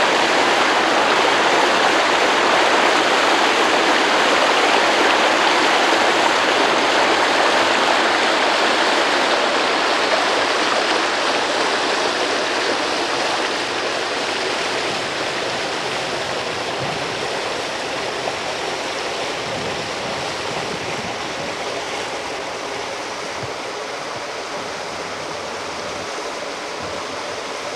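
Rushing water of a river by a waterfall: a steady, even hiss that slowly grows quieter over the second half.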